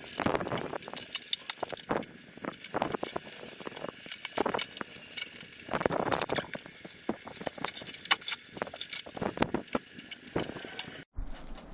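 Hands working on a wall-mounted air conditioner during disassembly: irregular clicks, knocks and short scraping sounds of parts being handled and pried apart. The sound cuts off abruptly about a second before the end, giving way to quieter handling.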